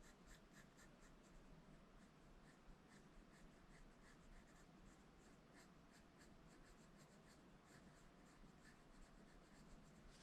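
Faint, quick scribbling of a pencil on paper, filling in a small solid area (the drawing's nose) in short, even back-and-forth strokes, several a second.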